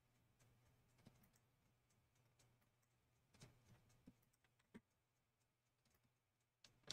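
Near silence: room tone with a faint steady low hum and a few faint, scattered clicks of a computer mouse and keyboard.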